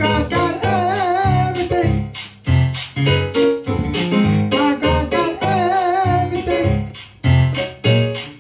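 Gospel-style music: keyboard chords over a pulsing bass line, with a voice holding two long notes with vibrato, about a second in and again around five to six seconds.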